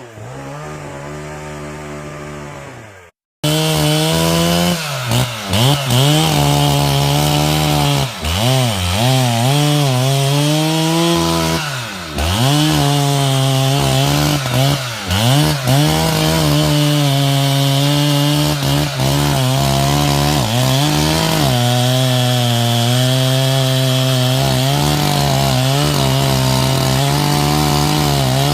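Chainsaw running hard while cutting into wood. Its pitch repeatedly sags and recovers as the chain bites and loads the engine, then holds steadier through the cut. The sound drops out briefly about three seconds in.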